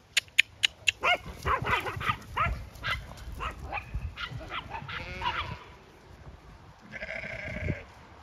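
About five sharp knocks in the first second, then a quick run of short, pitched animal calls, several a second. Near the end comes a longer, steadier call.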